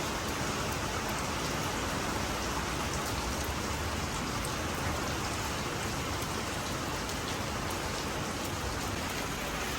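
Steady rain falling, an even, continuous hiss with no break or change.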